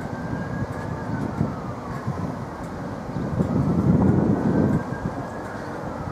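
InterCity 225 train, its Mk4 driving van trailer leading, rolling slowly through the station: a low rumble of wheels on rail with uneven knocks, loudest about four seconds in. A siren wails up and down twice behind it.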